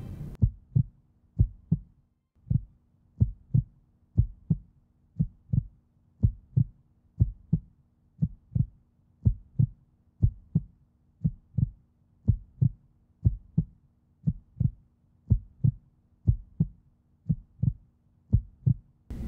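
Heartbeat sound effect: a steady lub-dub of paired low thumps, about one beat a second, over a faint low hum.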